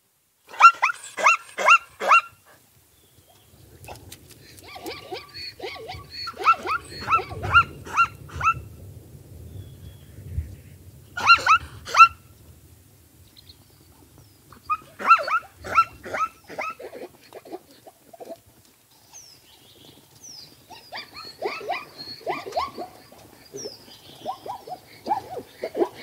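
Young zebra calling: several bouts of rapid, short, high calls, about five a second, with pauses of a few seconds between bouts. A faint low rumble runs under the middle part.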